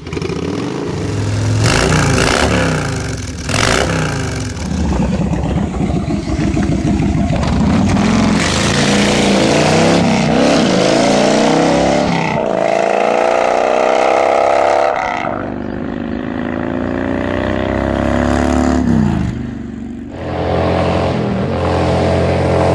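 Kawasaki VN2000's 2-liter V-twin engine revved in a few sharp blips, then accelerating hard through the gears: the pitch climbs three times, dropping at each upshift, and settles into a steady pull near the end.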